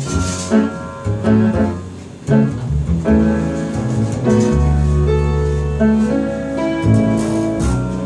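Upright piano and double bass playing a slow jazz ballad as an instrumental passage, with a long held low bass note in the middle.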